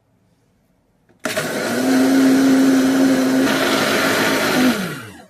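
Kitchen blender switched on about a second in, running steadily with water and leftover soap batter in the jar, whipping it to foam to rinse the jar clean. Near the end it is switched off and the motor spins down with a falling whine.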